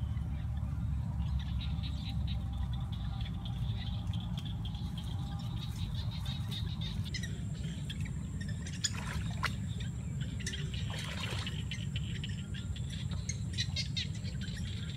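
Outdoor ambience: a steady low rumble, like wind on the microphone, under faint high chirping. From about halfway a thin steady high whine joins, with scattered crackles and rustles.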